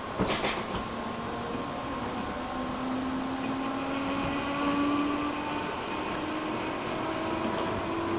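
JR East 205-600 series electric train running, with traction motor and gear whine rising slowly in pitch as the train gathers speed over a steady running rumble. A few sharp clacks come in the first second.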